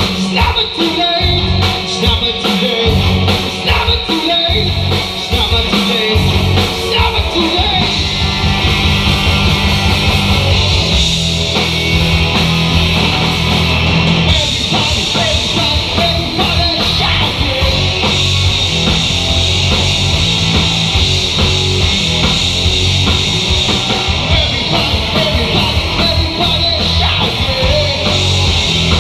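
Rock band playing live: two electric guitars, bass guitar and drums.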